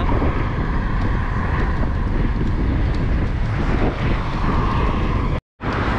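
Wind rushing over the microphone of a moving bicycle, a steady loud noise with a heavy low rumble. The sound cuts out completely for an instant near the end.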